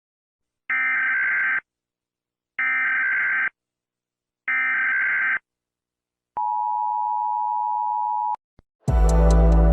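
Emergency Alert System alarm: three identical screechy digital header bursts about a second apart, then the steady two-tone attention signal held for about two seconds. Loud music with drums cuts in near the end.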